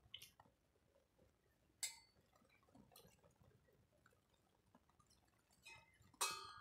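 A handful of faint clinks and taps of kitchen utensils against a vessel, heard against near silence. The loudest comes near the end and rings briefly.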